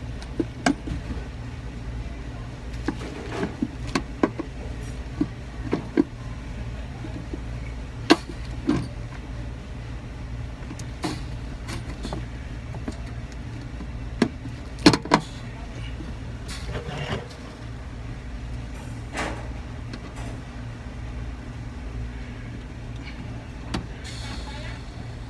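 A steady low machine hum, with scattered clicks, knocks and clatter of hands working on a commercial reach-in freezer. The sharpest knocks come about 4, 8 and 15 seconds in.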